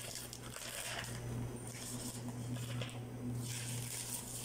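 Bouquet wrapping paper and clear film rustling and crinkling as the bouquet is handled at its gathered base, over a steady low hum.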